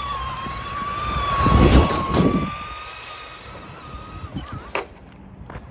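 Electric RC car motor whining at a steady high pitch as the car drives through puddled water, with a louder rushing swell about one and a half to two and a half seconds in. The whine cuts off about four seconds in, and a sharp click follows shortly after.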